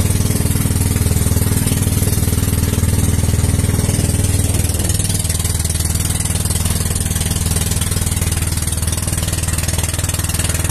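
Engine of a motorized outrigger banca running steadily under way, a low, even throb with a rush of water and wind above it; the engine eases slightly about five seconds in.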